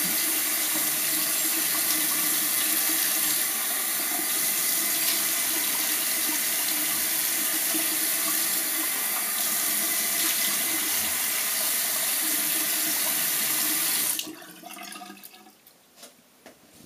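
Bathroom sink tap running steadily into the basin while the face is rinsed off after shaving. The tap is shut off suddenly about fourteen seconds in, followed by a few faint clicks.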